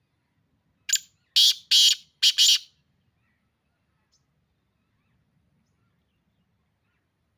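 Black francolin calling: one harsh, rasping phrase of about five quick notes, lasting under two seconds, starting about a second in.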